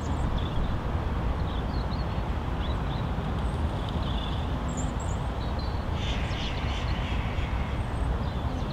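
Wind buffeting the microphone, a steady noise heaviest at the low end, with short bird chirps scattered through it.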